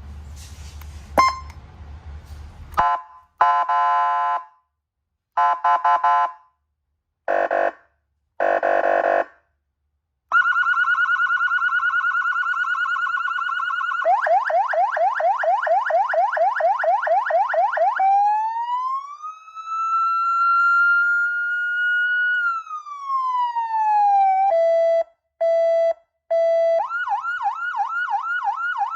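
A 300-watt electronic police siren, wireless-remote controlled, stepping through its tones after a low hum and a click. It gives four short blasts, a steady high tone, then a fast yelp of rapid repeating sweeps. Next comes a slow wail that rises, holds and falls, then three short low beeps, and near the end the fast yelp again.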